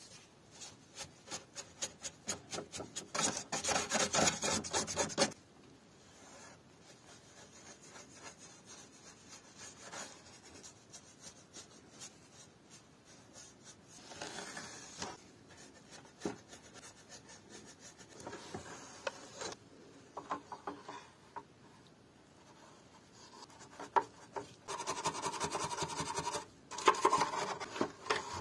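Scrubbing a dirty plastic mirror frame with a brush and then a sponge: quick rasping rub strokes, heaviest for a couple of seconds about three seconds in and again near the end, lighter and sparser in between.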